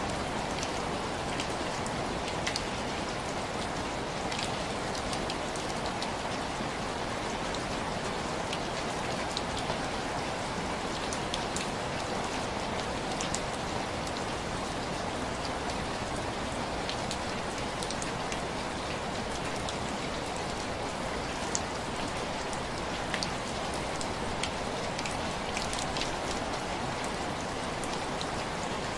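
Heavy rain falling steadily, with scattered sharp clicks throughout.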